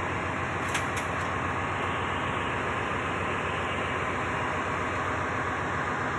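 Steady machinery noise of a ship's engine room, a constant even rumble and hiss, with a few faint clicks about a second in.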